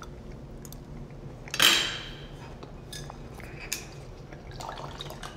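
Cutlery clattering sharply against a china plate about one and a half seconds in, followed by a few light clicks. Near the end, red wine is poured briefly into a wine glass.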